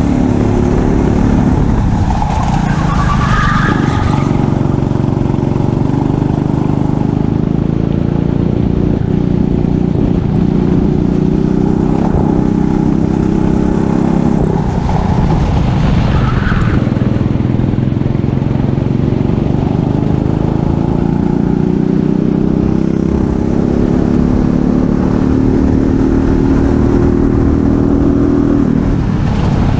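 Kart engine running hard, its pitch climbing slowly along the straights and dropping off sharply three times, about 2 s in, about 15 s in and near the end, as the kart brakes for corners. Tyres squeal briefly in the corners about 3 s and 16 s in.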